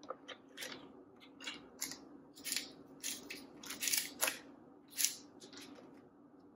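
Snow crab leg shells cracking and snapping as they are broken apart by hand: a string of sharp, irregular cracks and crackles, the loudest about four and five seconds in.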